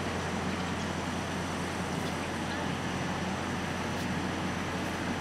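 Diesel locomotive's engine running steadily with a constant low hum, the unit creeping along the track while switching.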